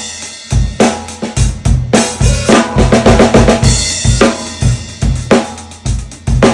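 Full drum kit played in a groove: a high-tuned 14 by 6.25 inch whiskey barrel oak stave snare drum cracking over kick drum and cymbals, with a run of quick strokes about halfway through.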